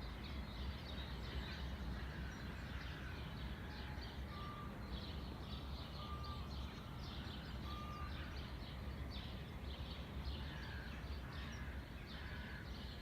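Many small birds chirping and singing, with short repeated chirps throughout and three brief clear whistled notes near the middle, over a steady low rumble.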